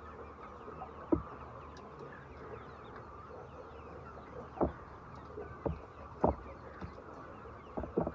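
Chickens clucking, over a steady bed of faint high chirps, with a few short sharp knocks scattered through, the loudest about a second in and around six seconds.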